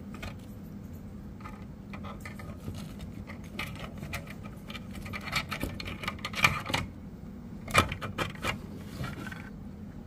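Plastic support material being snapped and pulled off a 3D-printed figure by hand: a run of sharp clicks and crackles, loudest in the middle, over a steady low hum.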